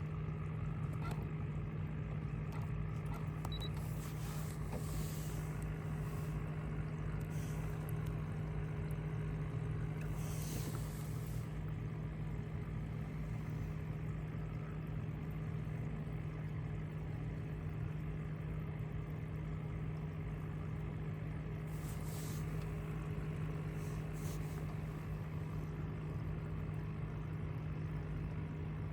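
An engine running steadily at constant speed, a steady hum with short hissy rushes now and then.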